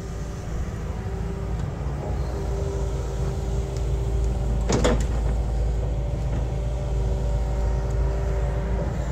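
Hitachi Zaxis 210 LC excavator's diesel engine running steadily under load, with a steady whine over it. About halfway through comes a short crash as the stump grapple drops a root-laden stump onto the trailer.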